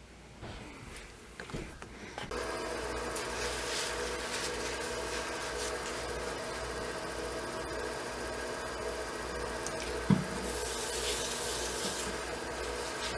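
Variable-speed wood lathe switched on about two seconds in and running steadily while wood is worked on it. A single knock about ten seconds in.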